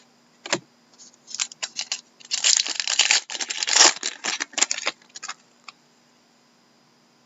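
Trading-card pack wrapper being torn open and crinkled, with a dense stretch of crackling about two to four seconds in among scattered short rustles and clicks of cards being handled.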